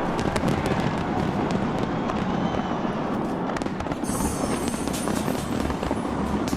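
Fireworks display going off: many sharp bangs and cracks over a dense rumble, with a burst of fine crackling from crackle shells starting about four seconds in.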